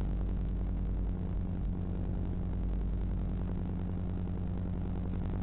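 A steady low hum with several evenly spaced overtones, holding one level and pitch throughout.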